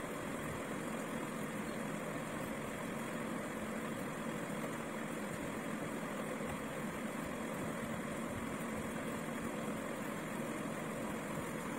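A steady mechanical drone with hiss, like a motor running, holding an even level with no strokes or changes.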